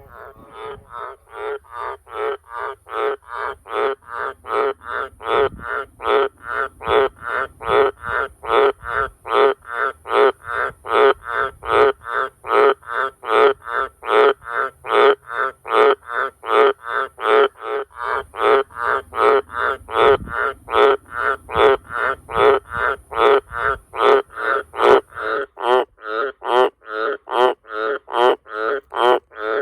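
Australian green tree frog (Litoria caerulea) calling: a long, steady run of loud, rasping croaks, about two a second, building in loudness over the first few seconds.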